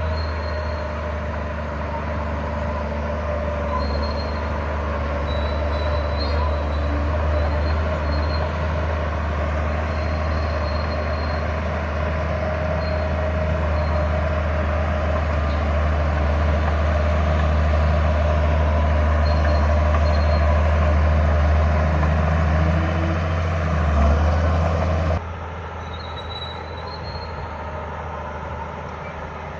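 Crawler bulldozer's diesel engine running steadily under load, with intermittent high squeals from the steel tracks. The sound drops abruptly to a lower level near the end.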